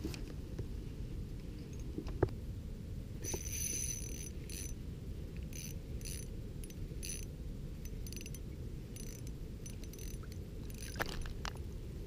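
Small Pflueger Trion spinning reel on an ice rod being cranked in short spells, its gears clicking and whirring quickly with a faint high ring. Under it is a steady low rumble.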